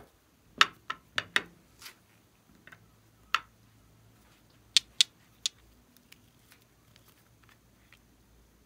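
Hard plastic clicks and taps as small duck-capped plastic bottles are lifted out of a plastic tray and their caps pulled off. The clicks come close together in the first two seconds, one stands alone about three and a half seconds in, and three come in quick succession around five seconds; after that there are only faint ticks.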